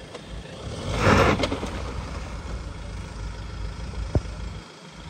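Mahindra Thar's engine running low under load in two-wheel drive. About a second in, a loud scrabble of rock and gravel as the driven tyres spin, and a single sharp knock near the end.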